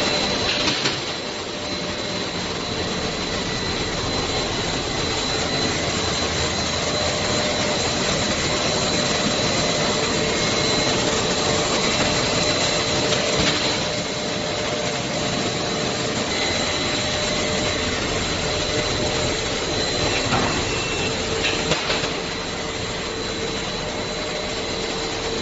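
Twin-screw plastic sheet extruder line running steadily: a continuous mechanical hiss with several steady whines, the highest a thin high-pitched whine.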